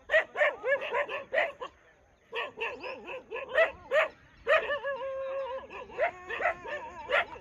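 Several dogs barking and yelping in quick runs, the calls overlapping, with a short pause about two seconds in and a few longer drawn-out notes near the middle.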